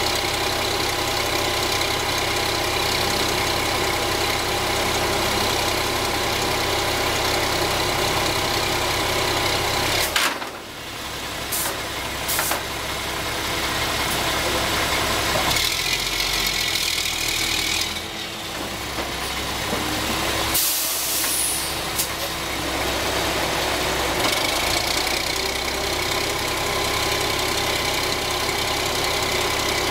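Heavy diesel engine of a large-diameter auger drilling rig running steadily. There is a sharp knock about ten seconds in, then the engine sound dips and shifts for several seconds before settling back to a steady run.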